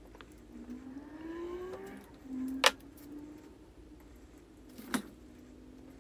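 Blue painter's tape being pulled and torn into small strips by hand. A short squeak rises in pitch as the tape pulls, followed by two sharp snaps a little over two seconds apart.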